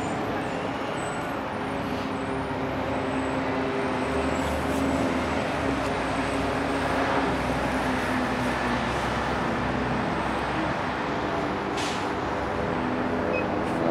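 Steady traffic noise with a vehicle engine running nearby, giving a constant low hum.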